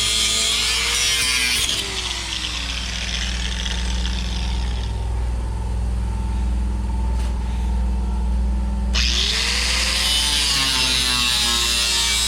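A power tool cutting into the car's sheet metal. About two seconds in its motor winds down and the cutting stops. A steady low hum carries on, then about nine seconds in the motor spins back up and the cutting starts again.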